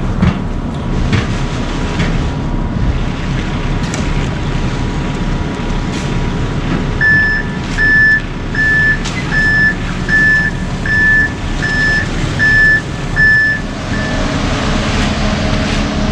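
A heavy vehicle's engine runs steadily. About halfway through, its backup alarm sounds about ten short, evenly spaced beeps, roughly one and a half a second, then stops.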